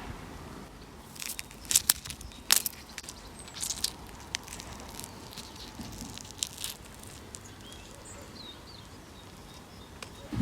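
Fruit being crushed by hand, giving a run of sharp crackles and snaps that bunch up between about one and seven seconds in, then stop. A few faint bird chirps near the end.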